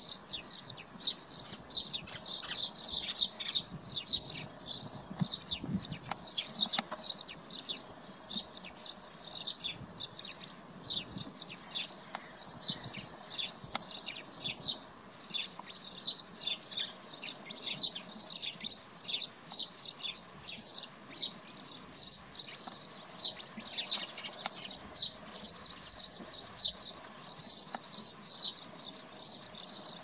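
Small birds chirping continuously, a dense run of short, high-pitched chirps, several a second.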